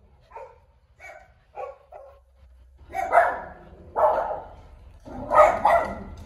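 Small dog barking: a few short quiet yips in the first two seconds, then several louder barks from about three seconds in.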